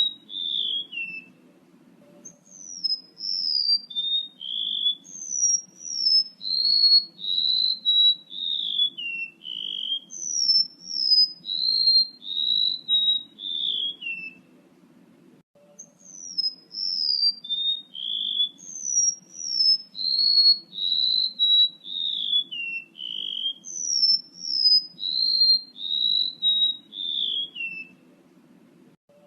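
Male golden-bellied gerygone (remetuk laut) song played as a bird lure: phrases of thin, high whistled notes that slide and step downward in pitch, repeated over and over. There are short breaks about two seconds in, around halfway, and near the end.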